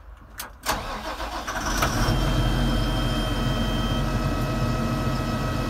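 The diesel engine of a Hardi Alpha EVO 2 self-propelled sprayer starting, heard from inside the cab: a click, a brief crank, and the engine catches under a second in, settling by about two seconds in into a steady, quiet idle with a faint high whine.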